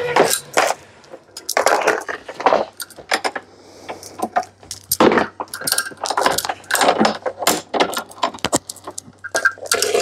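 Steel lifting chains jangling and clinking as they are handled, a quick irregular run of metal-on-metal clinks.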